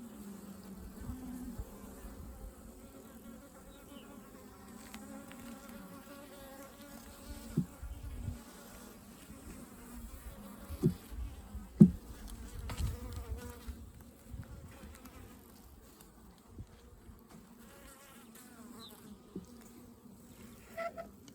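Honey bees buzzing in a steady, wavering hum around an open hive. A few brief, sharper bumps come through near the middle.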